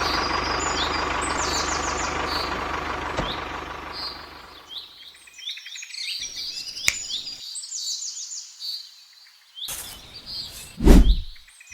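A small motor running steadily, fading out about four to five seconds in, with birds chirping throughout. Near the end comes a loud whoosh that falls steeply in pitch.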